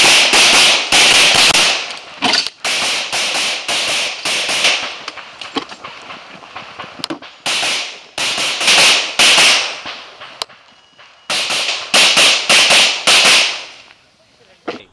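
Glock 24 pistol in .40 S&W firing quick strings of shots at a competition stage. Several fast runs of shots are broken by short pauses of a second or two, where the shooter moves or reloads.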